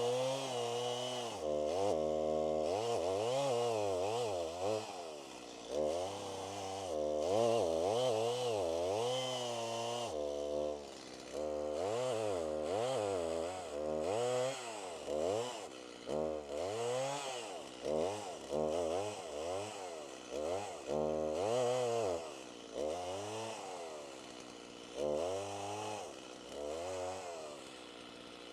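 Stihl Farmboss MS 290 two-stroke chainsaw cutting, its engine pitch rising and falling again and again as the throttle is worked, typical of making the back cut on a notched tree.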